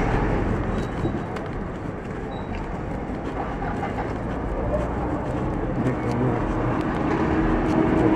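Busy city street traffic: a steady mix of engine and tyre noise from passing minibuses and cars. A nearby engine's drone grows a little louder near the end.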